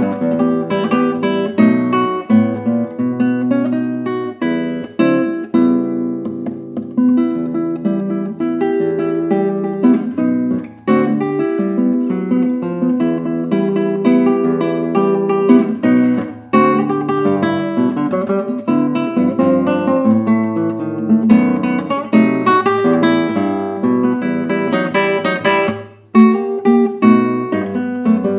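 Background music played on acoustic guitar: a run of quick plucked notes, briefly dropping away about 11 s, 16 s and 26 s in.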